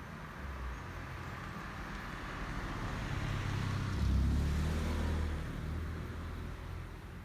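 A car passing by on the road, its noise swelling to a peak about four seconds in and then fading.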